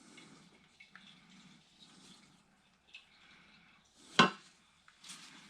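Quiet handling of a used, oily engine oil filter during its inspection for metal shavings: a few faint clicks and wet rustling, then one sharp knock about four seconds in.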